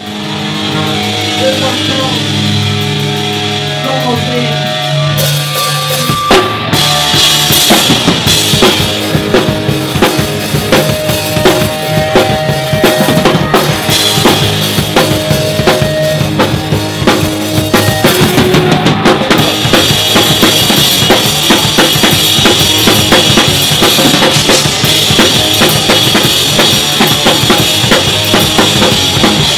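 Live hardcore punk band playing loud. Held, ringing notes carry the first five seconds, then the full band comes in with fast, dense drumming about six seconds in.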